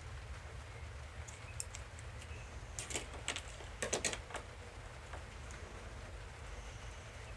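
Light clicks and taps of small plastic toy parts being handled, most of them in a cluster about three to four seconds in, over a steady low hum.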